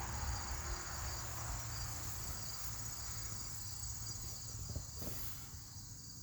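Steady high-pitched trilling of insects, over a low steady hum.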